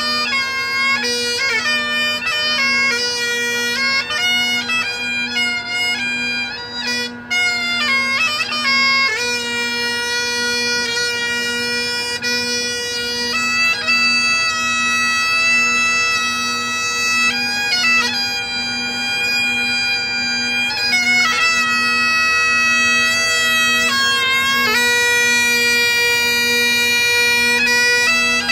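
Great Highland bagpipe playing a slow tune: long held melody notes over its constant drone, with quick grace-note flurries between the notes.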